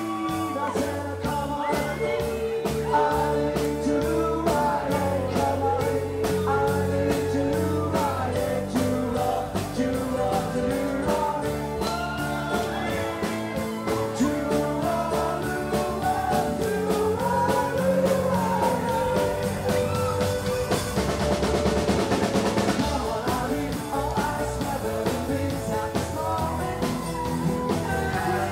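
Rock band playing with a singer: a steady drum-kit beat under electric guitar and vocals.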